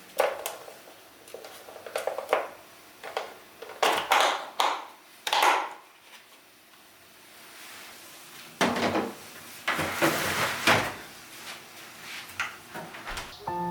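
Kitchen handling sounds during baking: a series of knocks and clicks of utensils and dishes, with a few longer scraping and rustling noises.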